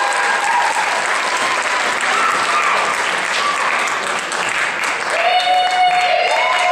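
Audience applauding steadily, with voices calling out over the clapping near the end.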